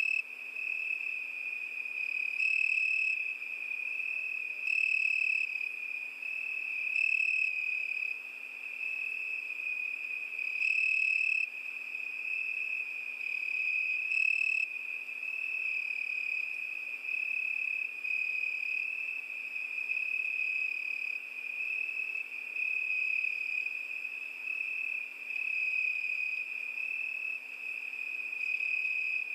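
Crickets singing at night: a steady high-pitched trill, with one louder cricket adding chirps about every two seconds through the first half.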